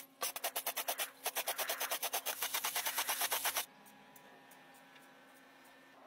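Aerosol spray paint can being shaken, its mixing ball clacking rapidly, about ten clacks a second with two brief pauses, stopping abruptly a little past halfway.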